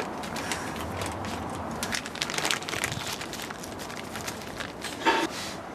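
Small plastic and metal RC car parts being handled, with scattered light clicks and rustling and one short louder scrape about five seconds in.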